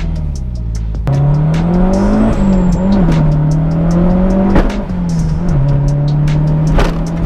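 Mazdaspeed 6's turbocharged 2.3-litre four-cylinder heard from inside the car under acceleration. The engine note climbs about a second in, rises and falls a few times, then holds steady, with scattered sharp clicks over it.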